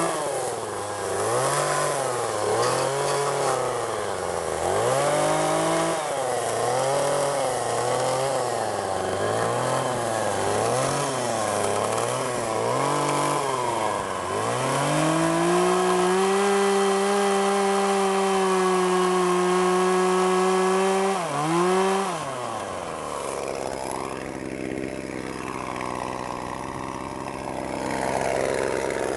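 Small petrol carving chainsaw revving up and down about once a second as it carves wood, then held at high revs for several seconds, before dropping back to a steady idle about 22 seconds in.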